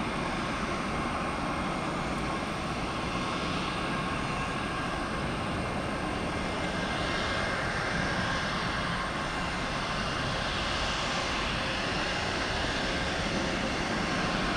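Jet airliner engines at takeoff power as a twin-engine jet lifts off and climbs away, a steady rushing noise with faint steady whine tones.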